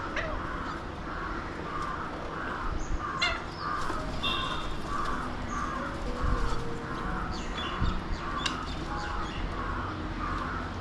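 Birds calling: one bird repeats the same short call about twice a second throughout, and higher, shorter calls break in a few times over it.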